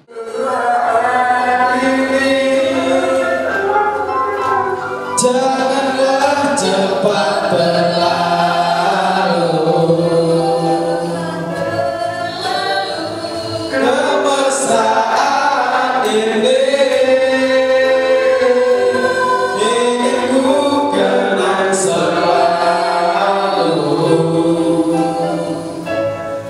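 A group of people singing a song into microphones, with electronic keyboard accompaniment; the singing starts abruptly.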